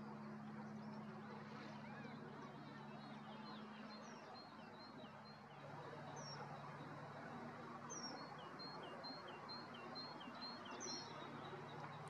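Small songbird singing: two runs of quick, evenly repeated high notes, each lasting two to three seconds, with a few separate high down-slurred notes between them. Underneath is a steady low hum and outdoor background noise.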